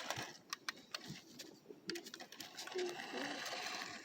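Small toy RC car's electric motor and gears whirring in short spurts, with scattered clicks.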